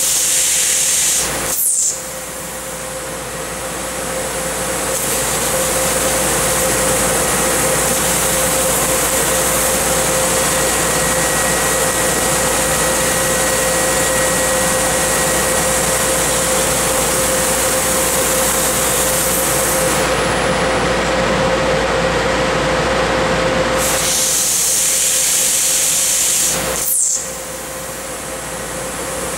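Tanaka 6 kW laser cutter cutting 1/2-inch mild steel: a loud steady hiss from the cutting head with a steady hum under it. The sound dips sharply for a moment about two seconds in and again near the end, then builds back up.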